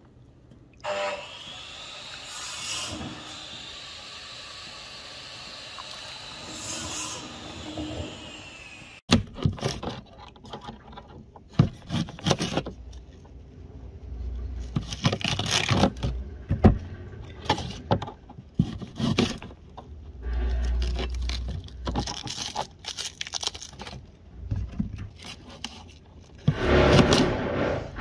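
Knife cutting onions on a plastic tray: irregular clicks and scrapes of the blade, starting about nine seconds in. Before that, a quieter stretch of hands stirring pinto beans in a plastic bowl of water, with a steady high tone.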